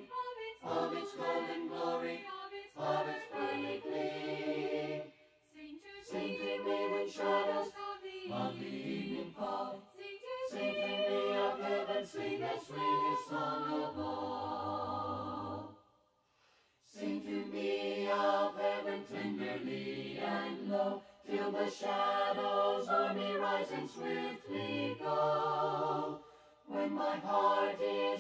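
Choir singing a hymn a cappella, phrase by phrase; about halfway through a long chord is held, then breaks off briefly before the singing resumes.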